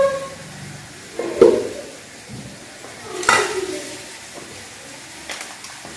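Kitchen utensils knocking: two sharp knocks of a spoon against a metal pan or bowl, each with a short ring, about a second and a half in and again about two seconds later, then faint clicks near the end.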